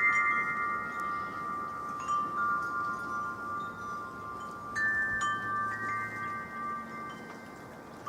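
Wind chimes ringing in the wind, several pitched tones struck irregularly and left to fade, with fresh strikes about two seconds and five seconds in.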